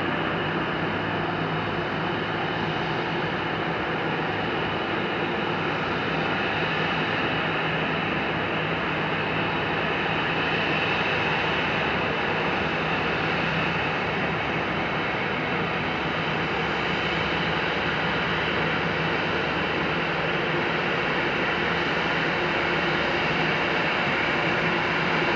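Airbus A320 jet engines running at low taxi power as the airliner rolls slowly by: a steady rush with a low hum underneath, growing slightly louder near the end.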